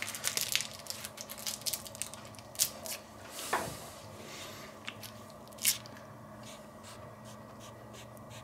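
Soft squishing and crinkling as raw sausage meat and rolled baking paper are pressed down the filling tube of a sausage stuffer with a wooden spoon handle, forcing the last filling into the casing. Scattered small clicks and squelches, a few sharper ones, and a short falling squeak about three and a half seconds in.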